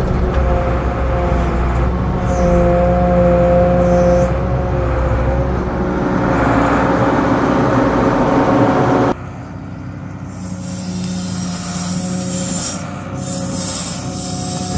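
Åkerman H7Mc wheel excavator's Volvo TD61ACE six-cylinder turbo diesel running under load, with a steady hydraulic whine over the engine, heard inside the cab. About nine seconds in it drops suddenly to a quieter take of the same machine working, heard from outside.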